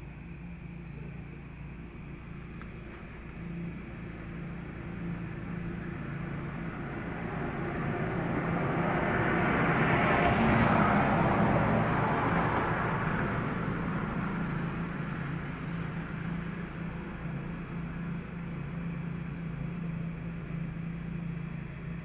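Steady low background hum with a broad rushing noise that slowly swells to a peak about halfway through and fades away again: a vehicle passing by.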